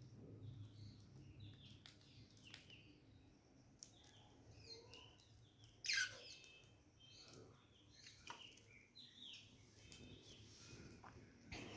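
Budgerigars chirping and chattering softly in short, scattered calls, with one louder call falling in pitch about halfway through.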